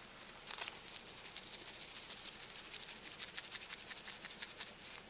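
Quick faint crackling and rustling of grass and ground litter as a gloved hand presses puffball mushrooms, bursting them into clouds of spores. A few thin high squeaks come in the first two seconds, and the crackling is thickest in the middle.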